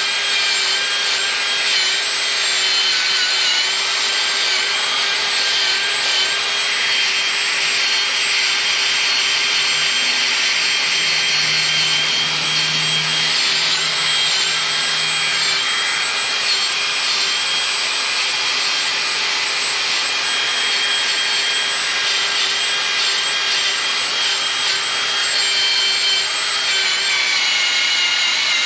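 Electric drill spinning a wire cup brush against an engine block, stripping old paint and grime. It makes a steady high whine with a few held tones over a harsh scrubbing hiss.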